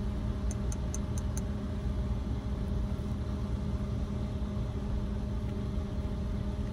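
Car engine idling steadily, heard from inside the cabin as a low even hum. A few quick light ticks sound about a second in.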